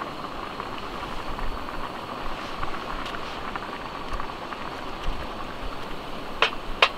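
Canister gas stove burning under an aluminium mess tin of boiling water, a steady hiss with small bubbling crackles. Two sharp taps of a utensil near the end.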